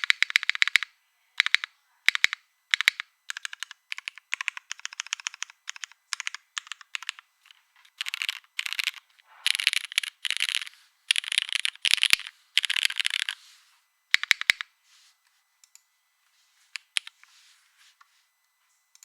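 Typing on a TGR 910 GSK mechanical keyboard with lubed Cherry MX Black linear switches in an O-ring-mounted aluminium plate with GMK keycaps: quick runs of key clacks in bursts, densest and loudest in the middle, thinning to a few faint taps for the last few seconds.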